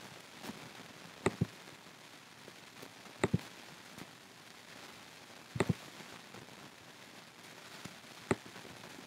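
Computer mouse clicking: a few sharp clicks, mostly in quick pairs, about once every two seconds, over a steady faint hiss.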